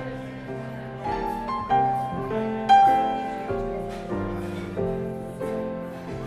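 Grand piano played solo: a melody of single notes over chords, each struck and left to ring, at an unhurried pace of a new note or chord about every half second to a second.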